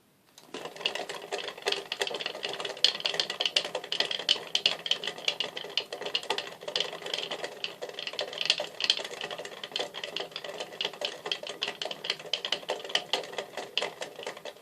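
Minoura Action Mag Roller bicycle rollers spinning with a rapid, continuous clicking rattle that starts about half a second in. The noise comes from worn plastic parts of the rollers, not from the bearings.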